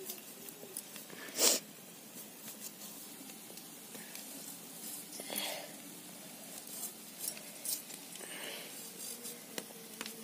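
A potato being peeled with a large curved iron blade: a few short scrapes as the skin is shaved off, the loudest about a second and a half in, with small clicks of handling in between.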